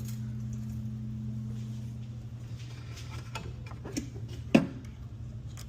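A few sharp clicks and knocks of keys and locksmith tools being handled, over a steady low hum. The clicks come in the second half, and the loudest is about four and a half seconds in.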